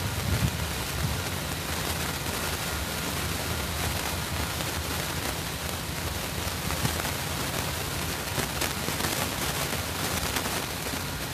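Freight train rolling past at a distance as its last cars go by: a steady low rumble under an even hiss.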